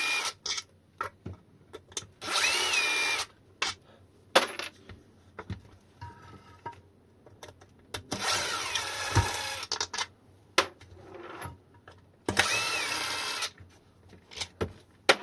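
Small electric screwdriver running in three short bursts of a second or two, with a whine that rises as it spins up, backing out the 2.5 mm hex bolts on a battery case end. Clicks and knocks from handling the case and tools come between the runs.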